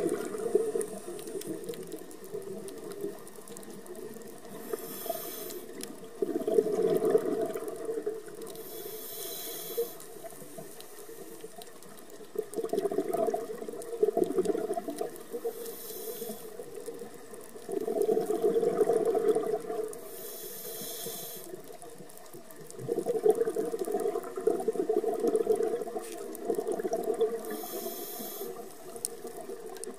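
Scuba diver breathing through a regulator, heard underwater: a short hiss on each inhale, then a longer, louder rush of bubbles on each exhale, repeating every five to seven seconds.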